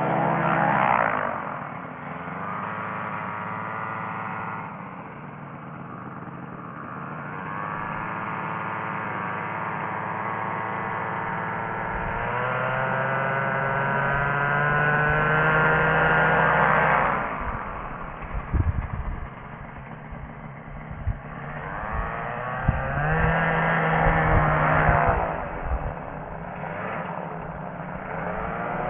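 Rotec Rally 2B ultralight's engine and propeller running during a slow taxi. The engine rises in pitch to two long surges of power, the first building steadily for several seconds before cutting back sharply, the second shorter near the end. Between them it drops to a low, uneven idle with a few sharp knocks.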